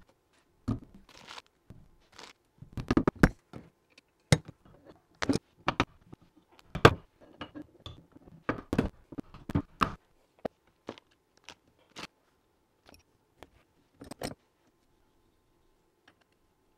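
Irregular metal clinks, taps and short scrapes as a cast bracket of a surface grinder's vertical feed is handled and fitted down over a threaded feed screw clamped in a vise. The loudest knocks come about three and seven seconds in.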